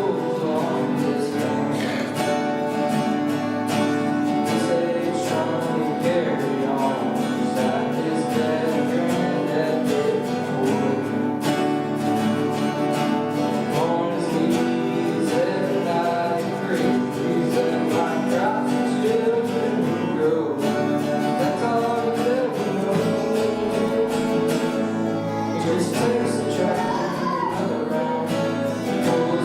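Acoustic guitar strummed steadily, with a voice singing along.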